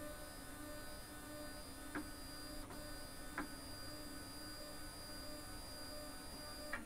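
LulzBot TAZ6 3D printer running with a steady, faint hum of fans and motors, made up of several steady tones, broken by a few soft clicks.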